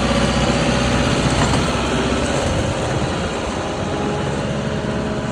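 JCB 1CXT compact backhoe loader's diesel engine running steadily, a bit louder in the first second or so and then settling.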